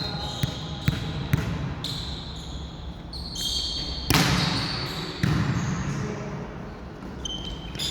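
Volleyball rally in a gym: sneakers squeaking in short high squeals on the court floor, and the ball struck with a sharp smack about four seconds in that rings on in the echoing hall.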